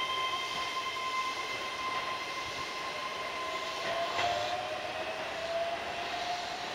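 Keihan 13000 series electric train pulling away along the platform, its motor whine fading while a lower whine slowly rises in pitch as it gathers speed; a single sharp clack about four seconds in.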